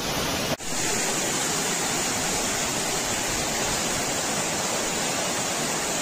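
Waterfall: a loud, even rush of falling water with no breaks. It cuts in abruptly about half a second in.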